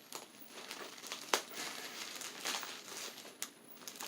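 Plastic bubble wrap crinkling as it is handled, with a few sharp clicks.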